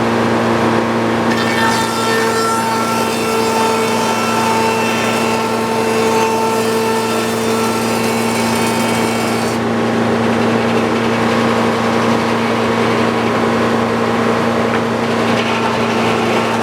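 Sawmill running steadily while its blade cuts through wood, edging a board. The cutting hiss starts about a second in and stops after about nine seconds, leaving the mill's engine running on.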